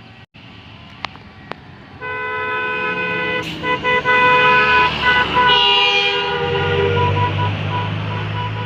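Bus telolet horn, a multi-tone horn playing a stepping tune, comes in loud about two seconds in. A low diesel engine rumble rises under it near the end.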